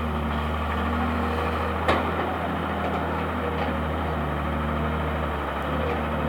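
Engine running steadily, with a single sharp click about two seconds in.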